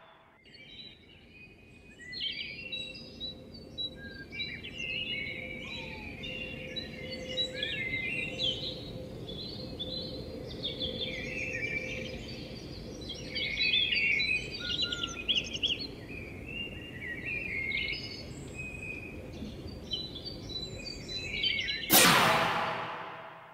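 Many small birds chirping and twittering over a steady background hiss. Near the end a loud whoosh sweeps in and fades away.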